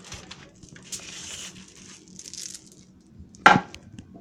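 Rustling and handling noise from rummaging through cleaning supplies, with small clicks and one sharp knock about three and a half seconds in.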